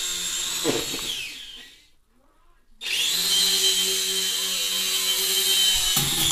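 Toy RC helicopter's small electric motor and single rotor running with a high whine. About a second in it winds down and stops. It starts up again abruptly and runs steadily, with a couple of sharp knocks near the end.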